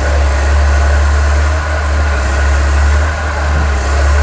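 Komatsu excavator's diesel engine running steadily with a low, even drone, running again after standing unused for a long time.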